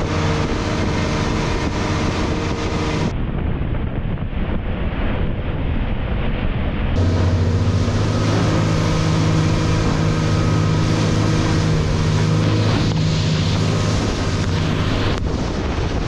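Extreme 745 aluminium fishing boat underway at speed: its outboard motor running steadily over the rush of the wake, with wind buffeting the microphone. About three seconds in the sound goes muffled for roughly four seconds, then the engine comes back clear and louder.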